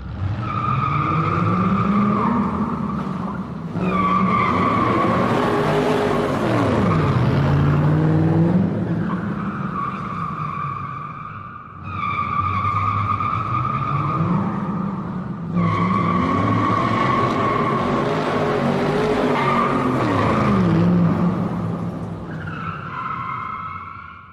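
A drifting car's tyres screech continuously, a high squeal over the engine revving up and down. The sequence repeats about halfway through, and the sound fades out at the end.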